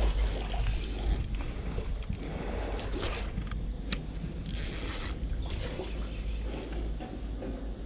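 Spinning reel being cranked on a retrieve, an uneven mechanical whirring of gears and bail with scattered sharp clicks, over a steady low rumble.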